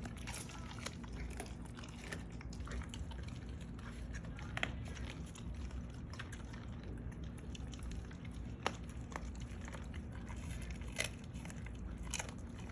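Rottweilers chewing chicken, with sharp crunching snaps every few seconds over a low steady rumble.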